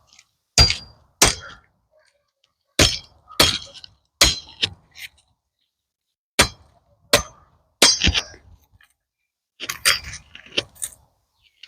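Dry, dead pecan branches cracking and clacking as they are broken up and handled: about a dozen sharp wooden cracks at irregular intervals, some with a brief ringing tail.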